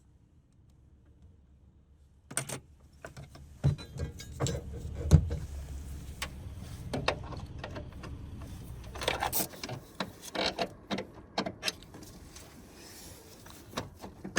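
Metal tools and car parts being handled: a string of clicks, knocks and clinks, with a low hum under them from about four to nine seconds in.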